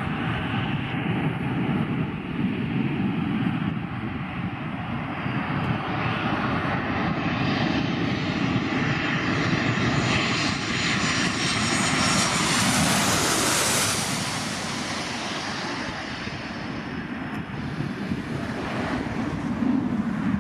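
Boeing 737 jet engines on landing approach, a steady rushing drone whose whine grows louder and brighter as the airliner passes closest, then eases off as it reaches the runway.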